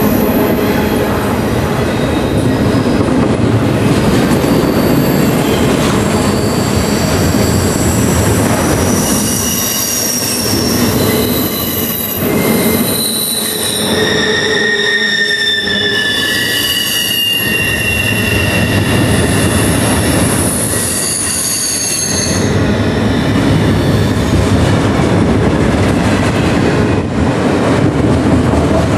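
Double-stack intermodal freight train rolling past close by: a steady rumble of steel wheels on the rails, with wheels squealing in high, shifting tones that stop a little past twenty seconds in.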